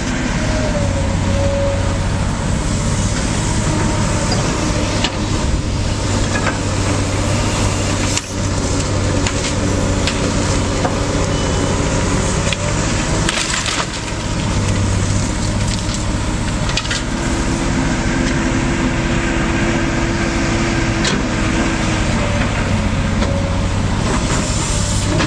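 Demolition machinery lifting and loading debris: a heavy machine's engine runs steadily under repeated cracking, splintering and crushing of wood and rubble. A steady whine comes in about two-thirds of the way through and holds for a few seconds.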